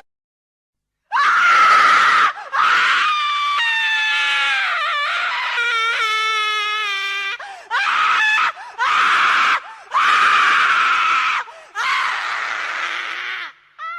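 A run of loud, terrified human screams as a horror sound effect, several separate screams with short breaks between them. In the middle one scream turns into a long, wavering wail.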